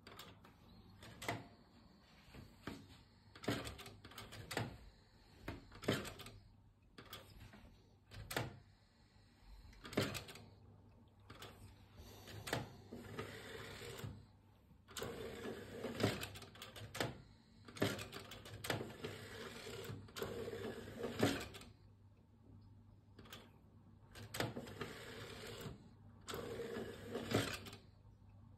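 Philips CD 160 CD player being worked by hand: a series of sharp clicks from its front-panel buttons and mechanism, with several stretches of mechanical whirring as the disc drawer opens and closes and the player handles the disc.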